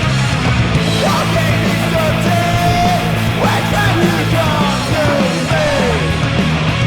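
Loud background rock music, punk or metal style, with distorted guitar and a shouted vocal line.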